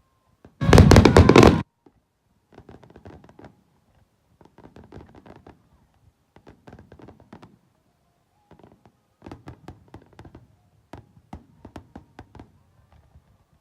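Aerial fireworks going off: a loud, dense crackling burst about a second in, then several quieter clusters of sharp pops and crackles every second or two.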